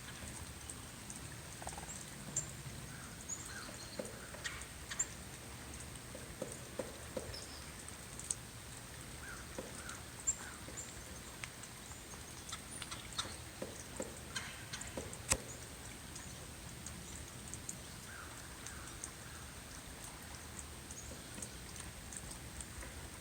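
Irregular single knocks, spaced a second or more apart and of varying strength, with one standing out well above the rest about two-thirds of the way through. The uploader thinks a woodpecker could have made them but finds them too slow for one.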